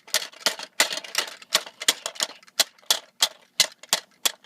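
A toy clacking loudly in a steady run of sharp clicks, about three a second.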